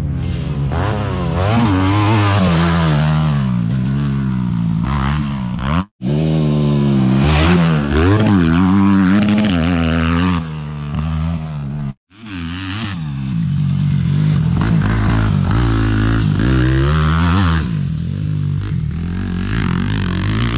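Yamaha YZ250F dirt bike's carbureted single-cylinder four-stroke engine revving hard and easing off over and over as it rides a motocross track, the pitch climbing and dropping with throttle and gear changes. The sound breaks off abruptly twice, about six and twelve seconds in.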